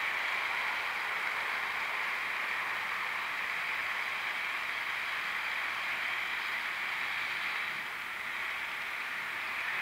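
Märklin H0 model freight train rolling past on C-track: a steady rushing whirr of many wagon wheels on the hollow track bed, easing off slightly about eight seconds in.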